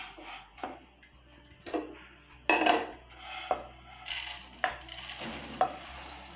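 Wooden spatula scraping dry-roasted vermicelli out of a pan into a bowl: the crisp strands hiss and slide, with a string of knocks of the spatula against the pan and bowl, roughly one a second, the loudest about two and a half seconds in.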